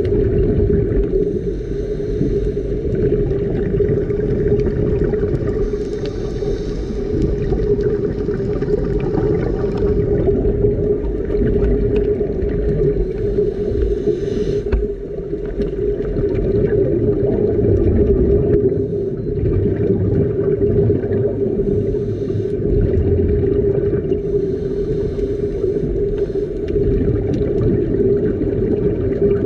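Underwater, the steady drone of a boat's engine and propeller carried through the water, one held hum over a low rumble, with brief faint hissing now and then.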